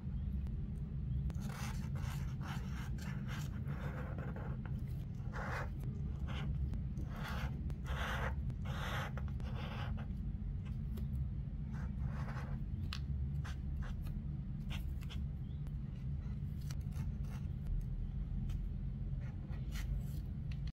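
Felt-tip marker drawing on sketchbook paper: a series of short scratchy strokes as lines are drawn, some quick, some longer, over a steady low hum.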